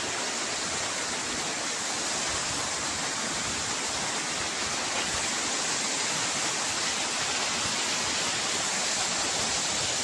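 Waterfall dropping down a rock face into a pool: a steady, even rush of falling water.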